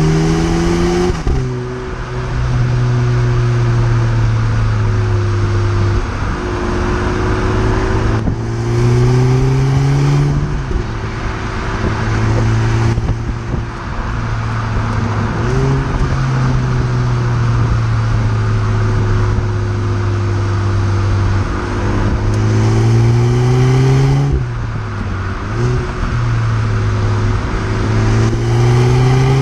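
2010 Skoda Fabia vRS's 1.4 TSI twincharged four-cylinder engine heard at the tailpipes through its stock twin-tip exhaust while driving. The pitch climbs steadily under acceleration and drops back sharply several times, with wind and road noise throughout.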